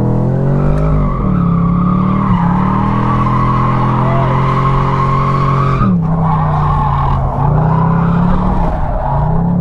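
Chevrolet Camaro convertible's engine held high in the revs while the car drifts in donuts, its rear tyres squealing; the revs drop about six seconds in and climb again. The tyres are being worn smooth.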